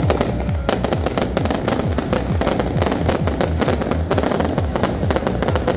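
Dense, continuous crackling and banging of firecrackers and aerial fireworks going off in rapid irregular succession. Under it runs music with a heavy, repeated low beat.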